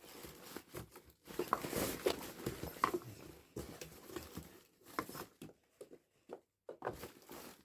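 Rustling with light clicks and knocks of items being handled during an unboxing, most likely the fabric carry bag and its contents. The handling is busy at first and thins to a few scattered clicks over the last couple of seconds.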